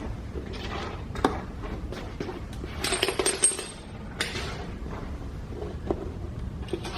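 Pieces of broken glass clinking and knocking together, with a cluster of bright, ringing clinks about three seconds in and scattered knocks around it.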